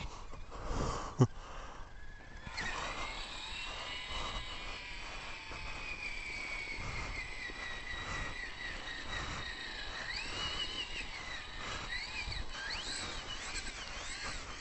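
High whine of an RC truck's electric motor and drivetrain, its pitch sliding slowly down and then rising and falling several times as the speed changes. A couple of clicks and a sharp knock come just before the whine starts.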